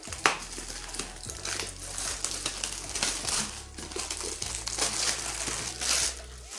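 Plastic shrink-wrap on a Magic: The Gathering bundle box being torn open by hand and crinkled, with many sharp crackles.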